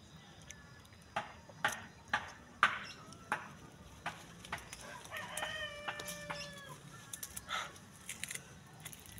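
A rooster crows once, a single long call of about a second and a half starting about five seconds in. Before it, several sharp crunches as crisp young mango is bitten and chewed; these crunches are the loudest sounds.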